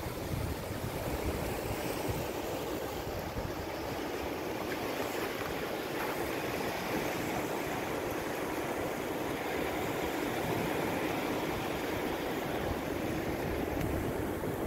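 Sea surf washing onto the shore in a steady rush.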